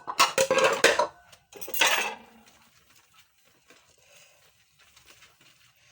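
Dishes and cutlery clattering as they are handled while being hand-washed: a burst of about a second at the start and a shorter one about two seconds in, then only faint handling noise.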